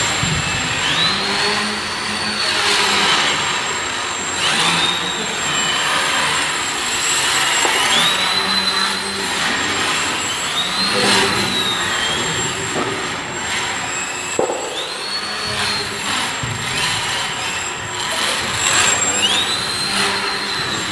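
Homemade CNC machine running, its stepper motors whining: the pitch rises as each axis move speeds up, holds, then falls as the move slows, repeating every two to three seconds over a steady high-pitched tone and noise.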